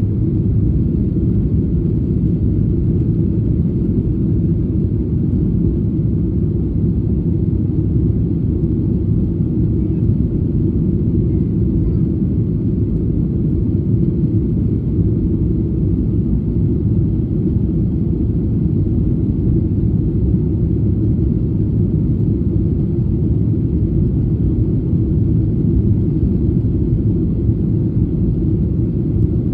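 Steady low rumble in the cabin of a Boeing 737-800 climbing after takeoff: its CFM56-7B turbofan engines at climb power, mixed with airflow noise over the fuselage, even and unchanging throughout.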